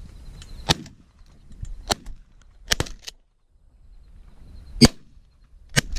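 Shotgun shots from several guns: about five sharp reports spread unevenly, some fainter than others, the loudest about five seconds in.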